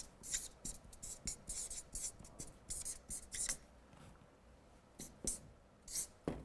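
Marker pen writing on a paper flip chart: a run of quick, short strokes for about three and a half seconds, a pause, then a few more strokes near the end.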